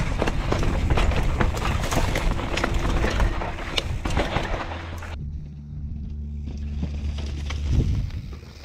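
Downhill mountain bike descending a rocky dirt trail: tyres rumbling over rock and loose dirt with quick rattles and clacks from the bike, and wind on the microphone. About five seconds in the sound changes abruptly to a quieter, steady low hum with a few knocks.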